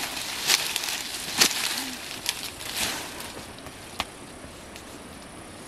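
Dry grass and dead leaves crackling and rustling as someone moves and works among them, a handful of sharp crackles in the first half. It settles to a faint steady hiss after about three seconds, broken by one sharp click.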